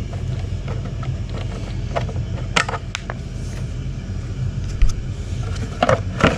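A steady low rumble underneath a few sharp clicks and taps from a mobility scooter battery box being unscrewed.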